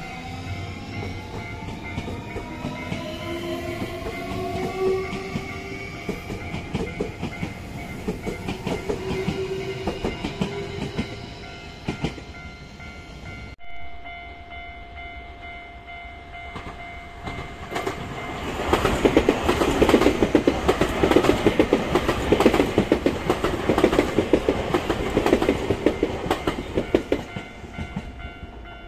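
Nankai 8300 series electric train pulling away, its motor whine rising in pitch as it speeds up. After a sudden change, a level-crossing bell rings steadily, and about halfway through a Nankai 1000 series train passes loudly with a fast clatter of wheels over the rail joints that fades near the end.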